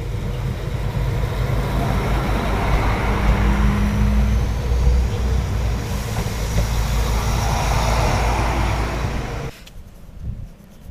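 Koleje Dolnośląskie SA139-014 diesel multiple unit going by on the rails: a low engine drone under a rushing wheel-and-rail noise that swells and eases, with a brief steady tone partway through. It cuts off suddenly near the end, giving way to faint wind.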